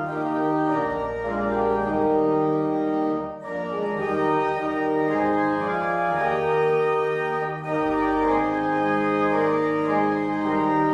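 Organ playing slow, sustained chords in phrases, with brief breaks between phrases about three and a half and seven and a half seconds in.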